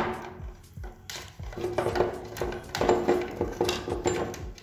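Irregular clicks, knocks and light rattling as cables, plug connectors and plastic fittings are handled and pushed into a metal urinal-sensor junction box.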